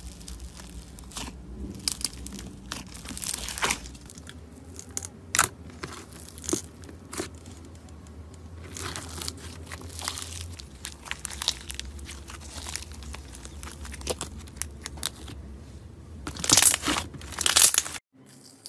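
White slime packed with foam beads being pressed and stretched by hand, making dense crackling and popping, with the loudest crunches near the end.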